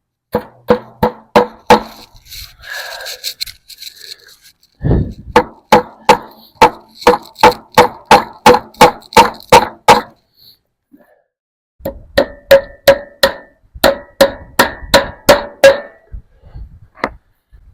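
Hammer driving fence staples to fasten fencing: three runs of quick, even strikes, about three a second, each with a short metallic ring, the middle run the longest.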